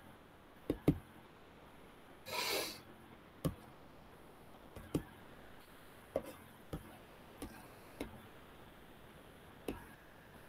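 Faint computer-mouse clicks, about nine of them at irregular intervals, over quiet room tone, with a short rush of hissy noise about two and a half seconds in.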